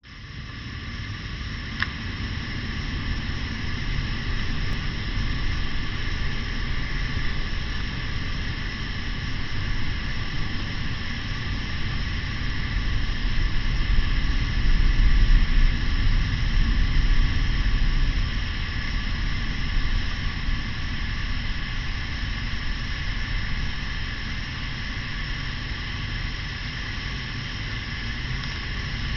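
Bonfire burning with a steady rushing hiss over a low rumble, and a single sharp pop about two seconds in.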